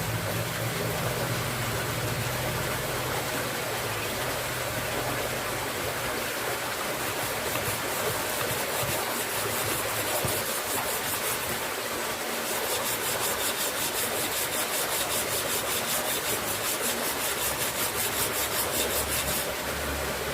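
Abrasive rubbing on a steel knife blade: a steady rasping that settles, about a third of the way in, into fast even strokes of about five a second, keeps that pace with a short break, and stops shortly before the end.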